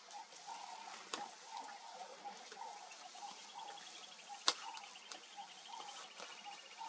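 Outdoor bush ambience: birds calling in short repeated notes, with a rapid high trill starting about two and a half seconds in. A few sharp snaps cut through, the loudest about four and a half seconds in.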